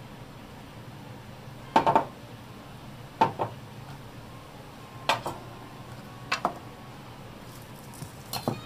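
Kitchen knife knocking on a cutting board: five pairs of sharp taps, about one pair every second and a half, over a low steady hum.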